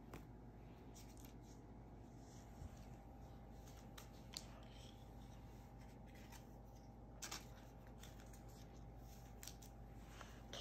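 Faint handling of trading cards and a clear plastic pack wrapper: soft crinkles and a few light clicks of cards on the stone counter.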